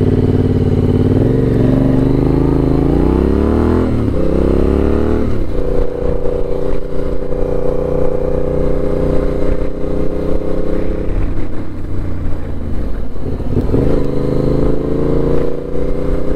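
Yamaha 689 cc parallel-twin motorcycle engine under way, climbing in pitch as it accelerates through the gears, with a drop at a gear change about four seconds in. It then holds a steady speed, eases off briefly, and pulls again near the end.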